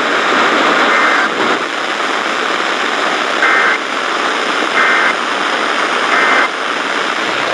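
Weather-radio static hiss with short bursts of two-tone SAME data chirps: one about a second in, then three in a row a little over a second apart. They are the end-of-message code that closes the severe thunderstorm warning.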